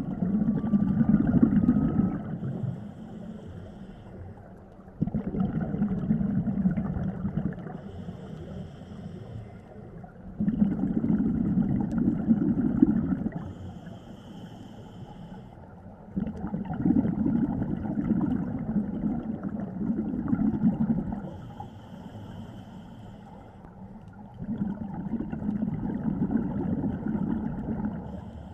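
Scuba diver's own breathing through a regulator: about five exhalations, each a loud rush of bubbles lasting two to four seconds, with quieter inhalations through the regulator between them.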